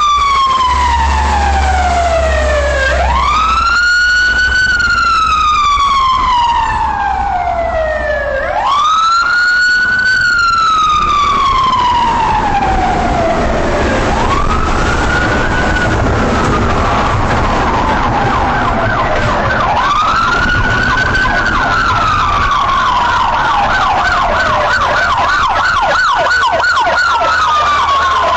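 Police siren wailing: each cycle rises quickly, then falls slowly over about five seconds, repeating throughout. About halfway through, a second siren joins with a fast, rapidly repeating warble. A low vehicle engine rumble runs underneath.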